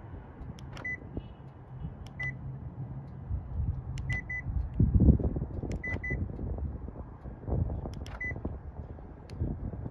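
Locking and unlocking a 2020 Hyundai Sonata with its key fob: a sharp click followed by a short high beep, sometimes a single beep and sometimes a quick double beep, about five times. There is a low rumble, loudest about halfway through.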